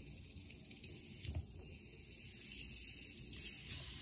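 Carbonated soda hissing out steadily as the plastic screw cap of a Pepsi bottle is slowly twisted loose, with a few small clicks from the cap; the hiss cuts off near the end.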